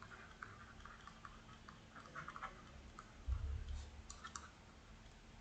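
Faint, irregular small clicks and taps of a pen writing. A soft low bump about three seconds in.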